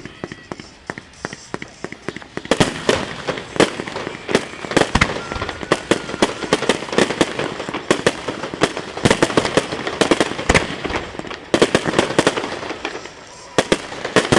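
Fireworks display: a rapid barrage of bangs and crackles from aerial shells bursting. The bangs come thicker about two seconds in, and there is a short lull near the end before they start again.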